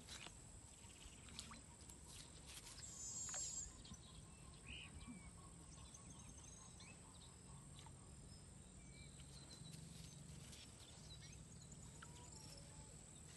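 Near silence: faint outdoor ambience with a thin steady high tone and a few soft clicks and brief chirps, a little louder about three seconds in.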